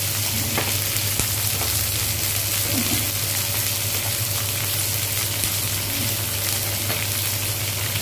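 Tomatoes and onion sizzling steadily in hot oil in a kadai, an even frying hiss.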